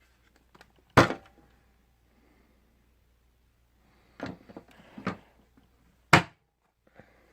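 Hard knocks and clicks of an upright vacuum cleaner being handled with its motor off. One loud knock comes about a second in, then a cluster of smaller knocks and rattles around four to five seconds, and another loud knock about six seconds in.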